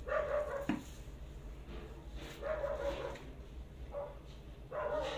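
A dog barking, four separate drawn-out barks with a steady pitch.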